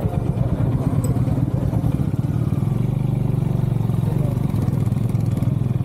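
Motorcycle engine running steadily with a fast, even low beat.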